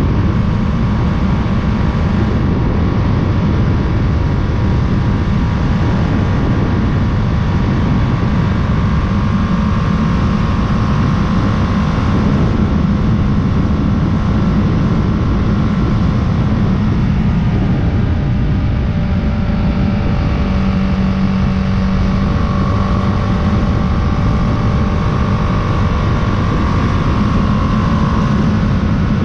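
Motorcycle under way: steady wind rush on the bike-mounted microphone over the engine's drone, whose pitch drifts slowly up and down with the throttle.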